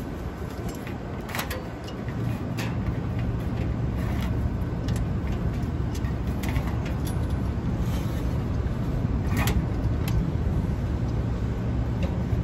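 Steady low machinery rumble and hum that grows louder about two seconds in, with scattered light clicks and taps over it.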